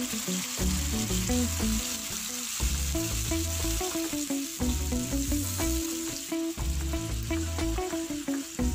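Thick tomato gravy bubbling and sizzling in a nonstick frying pan, stirred with a wooden spatula, over background music.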